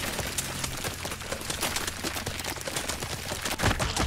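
Battle sound effects from a TV fantasy series: a quick, irregular clatter of short impacts over a low rumble.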